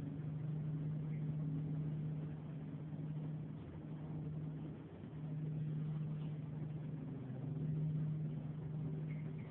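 A steady low mechanical hum, engine-like, holding one pitch, with a brief dip about five seconds in.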